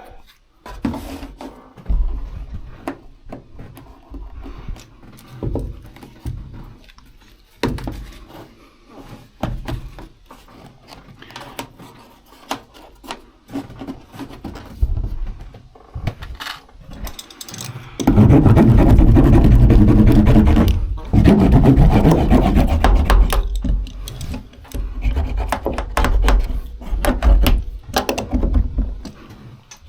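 Sound-insulation mat being handled and pressed onto the cab's sheet-metal panels: scattered knocks and taps, then a loud stretch of fast rubbing about two-thirds of the way in that lasts roughly six seconds.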